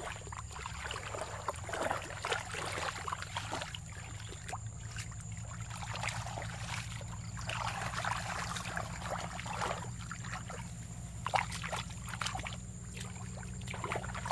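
Shallow muddy water sloshing and splashing irregularly as legs wade through it and hands grope in the mud, with occasional wet squelches and drips.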